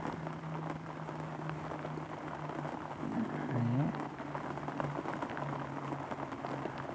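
Rain pattering steadily, with a low hum underneath and one short sliding tone, rising then falling, about three and a half seconds in.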